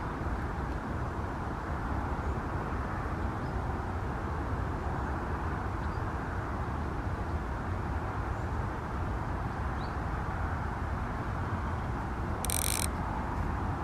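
Steady low background noise of an outdoor recording, with a brief high-pitched rasp about a second before the end.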